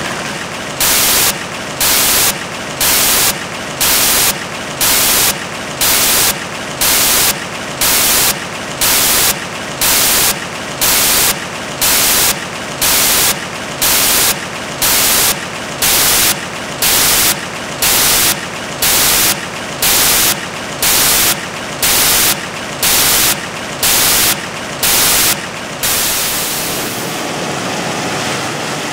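Dancing-fountain water jets running, with a steady hiss of falling, splashing water. About every second, for some 25 times, a louder hiss switches sharply on and off, then stops shortly before the end, leaving the steady splashing.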